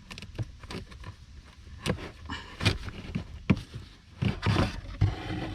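Irregular plastic clicks and knocks, with a short scrape about four and a half seconds in, as the cabin air filter housing's tab is forced and the filter is slid out.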